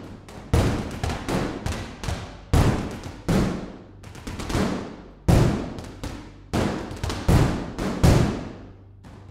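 Sampled percussion from the 'Couch Ensemble' patch of Tonehammer's Anti-Drum Vol. 1: recorded hits on a couch played as a rhythmic pattern of deep thuds, each with a long fading tail. Twice a quick run of repeated hits builds up in loudness to a strong accent.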